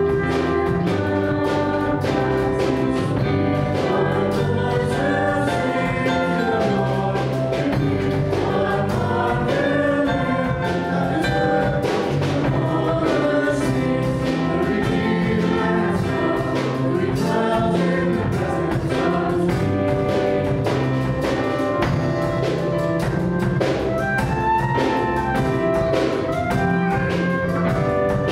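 A worship band playing a song: several voices singing together into microphones over keyboard, electric bass guitar and drum kit, with a steady beat throughout.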